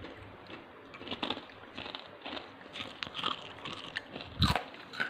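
Crisp fried namak pare being bitten and chewed close to the microphone: a quick, irregular run of dry crunches, the sign of a well-fried, flaky snack, with one louder thump about four and a half seconds in.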